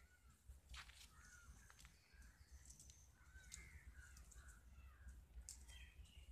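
Faint outdoor background of short, scattered bird calls over a low steady rumble.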